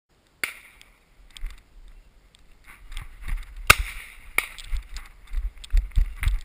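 A few sharp cracks, the strongest two less than a second apart about three and a half seconds in, over a low rumble of wind and handling noise on the camera.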